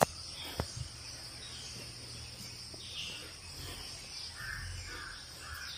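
Faint outdoor ambience of a steady, high-pitched insect drone, with a few faint bird chirps near the end. Two short clicks come in the first second.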